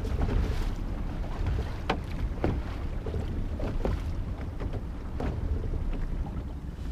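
Wind buffeting the microphone on a small fishing boat, with a steady low rumble and water moving around the hull. A few light knocks sound here and there.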